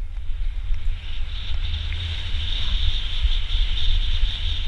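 Wind buffeting the microphone of a camera on a downhill mountain bike, over the steady rumble of tyres rolling fast on a dirt trail.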